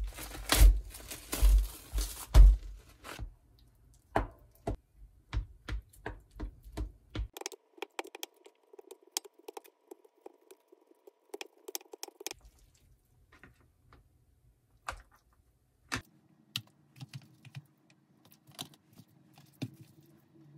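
Plastic cling wrap crinkling as it is peeled off a plastic takeout tray, loudest in the first few seconds. Then a metal spoon clicks and scrapes against the plastic tray as fried rice is scooped out, in many short, irregular taps.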